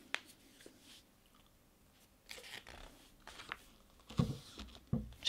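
Pages of a stapled paper booklet being turned and smoothed flat by hand: a light click near the start, then paper rustling from about two seconds in, with a few louder brushes near the end.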